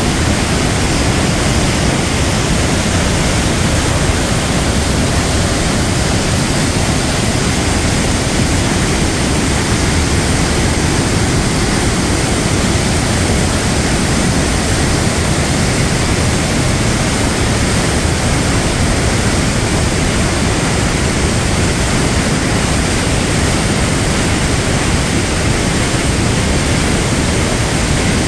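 A river waterfall, whitewater pouring over rocks: a loud, steady rush of water that never lets up.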